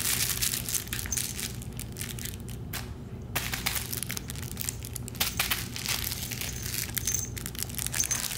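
Close rustling and crinkling from a puppy at play on a shaggy rug, with crackly clicks coming thick and fast and a brief lull about three seconds in.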